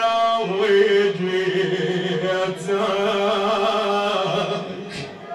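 A man chanting an Iraqi Shia funeral lament in long, wavering held notes without clear words. A short knock sounds near the end as the chant fades.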